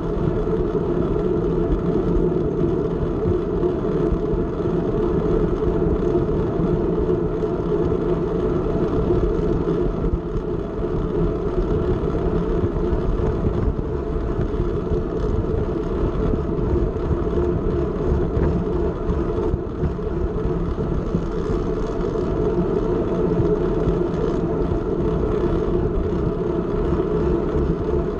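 Steady rush of wind on the microphone of a bicycle-mounted camera, mixed with road-bike tyre noise on asphalt, while riding.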